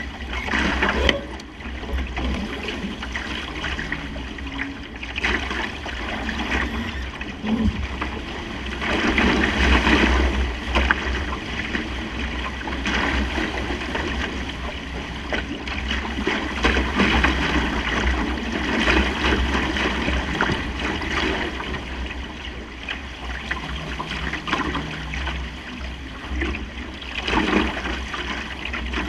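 Water rushing and splashing along the hull of a Supernova sailing dinghy under way in a fresh breeze, swelling in surges, with wind buffeting the microphone as a steady low rumble.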